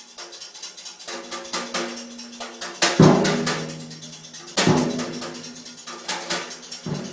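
Music with drums: a quick ticking beat over held low notes, and two heavy low hits, about three seconds in and again a second and a half later.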